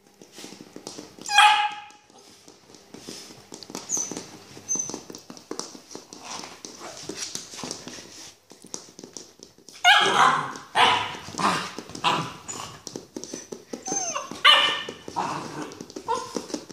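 Nine-week-old Rottweiler puppy barking: one bark a little over a second in, then a string of barks and yips from about ten seconds on, with soft scuffling in between.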